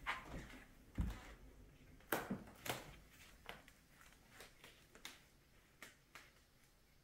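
Faint, irregular knocks and clicks, about one or two a second, fading toward the end: footsteps on a hardwood floor. The loudest is a low thud about a second in.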